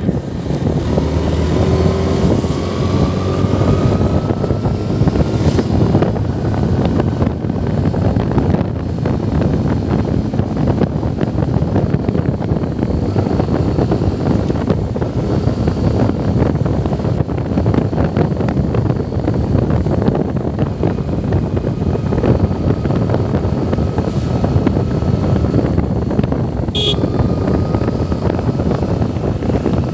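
Vehicle engine and road noise while driving, steady throughout, with a faint whine that rises slowly in pitch over the first few seconds. A brief sharp high-pitched sound cuts in about three seconds before the end.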